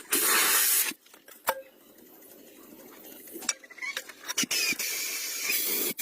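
Workshop sounds: a loud burst of hiss at the start, a quieter stretch with a few sharp clicks and knocks, then a steady high hiss building up near the end.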